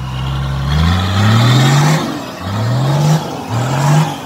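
Toyota Land Cruiser hardtop's engine revved hard again and again under load in deep mud, each rev rising in pitch and falling away, about four times.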